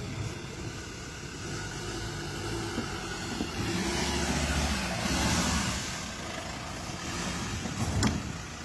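Ford Ranger 4WD engine running and revving up a little about four seconds in, with one sharp knock near the end.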